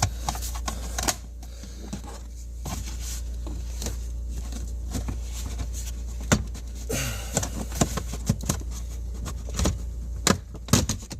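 Scattered clicks, knocks and rattles of hands working loose plastic trim around a Dodge Durango's dashboard and steering column, over a steady low hum.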